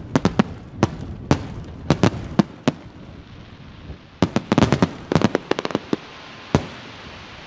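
Aerial firework shells bursting in a rapid, irregular series of sharp bangs, with a brief lull and then a dense cluster of bangs about four seconds in. A single last bang comes near the end, followed by a steady hiss.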